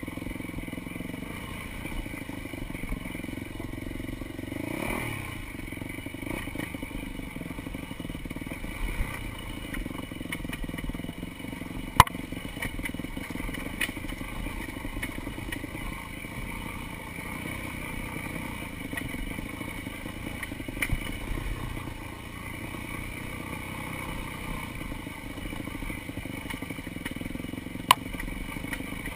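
Dirt bike engine running steadily while it is ridden over rough trail, with a brief rise in revs about five seconds in. Rattles and clatter come from the bike over the ground, with two sharp knocks: one about twelve seconds in and one near the end.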